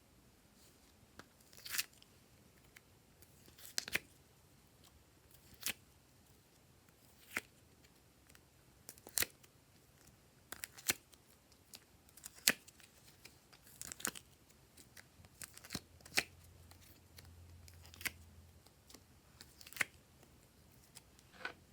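Glossy slime being worked by hand, giving a series of sharp sticky pops and clicks, roughly one every one to two seconds.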